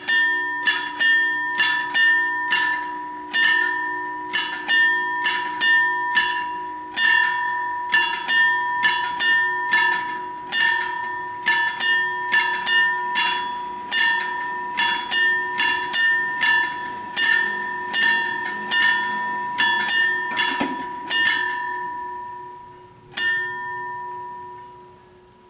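Level-crossing warning bell striking quickly and a little unevenly, about two strokes a second, each stroke leaving a ringing tone. It signals that the barriers are coming down for a train. Near the end the strokes stop, one last stroke follows, and the ring dies away.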